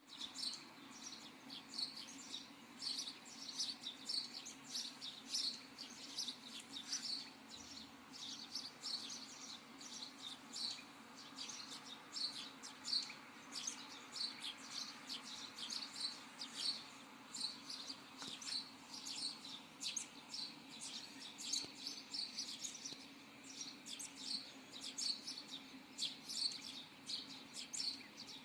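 Small birds chirping, with many short, quick calls overlapping throughout, over a faint steady low hum.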